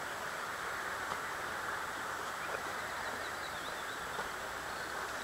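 Steady outdoor background hiss with faint bird chirps about three seconds in.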